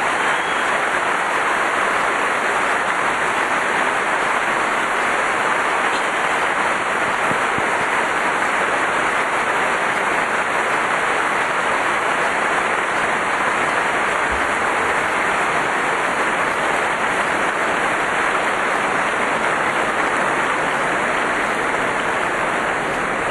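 A large stadium tennis crowd applauding steadily in a standing ovation at the end of the match.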